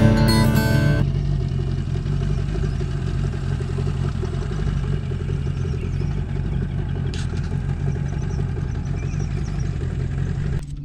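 A boat's outboard motor running steadily, heard from on board, after a few notes of guitar music end about a second in.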